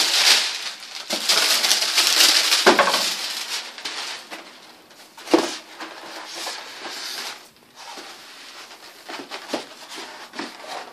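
Plastic packaging rustling and a cardboard box being handled, with two short knocks a few seconds apart; the rustling is loudest in the first few seconds and fades after.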